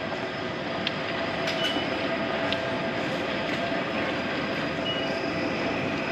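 Railway station concourse ambience: a steady background din of the station and passing crowd, with a few small clicks and two short high beeps typical of IC card ticket gates.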